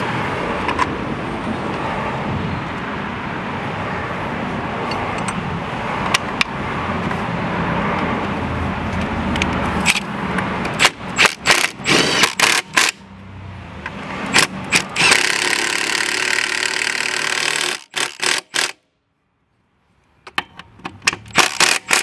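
Power drill with a socket driving in the mower's mounting bolts. It runs steadily for about ten seconds, then gives a series of short trigger bursts as the bolts are snugged down, with clicks between them.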